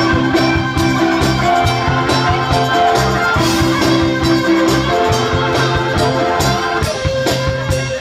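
Live band playing music through PA speakers, with a steady beat under sustained keyboard notes.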